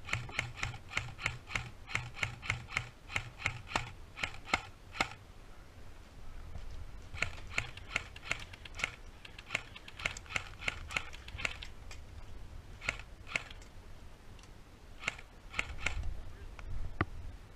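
Airsoft rifle firing quick single shots, about three to four a second, in several strings with pauses between them: suppressing fire to keep an opponent pinned down.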